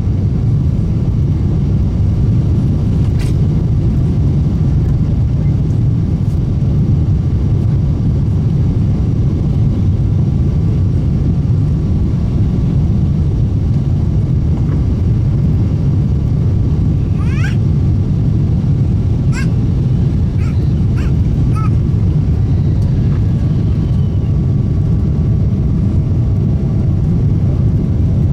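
Cabin noise inside a Boeing 777-300ER airliner: the steady low roar of its engines and the airflow past the fuselage.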